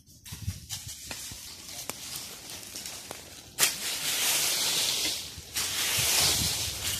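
Dry leaf litter crunching and rustling as it is disturbed. Light clicks and rustles in the first half, then two long, loud stretches of crunching that start suddenly about halfway in.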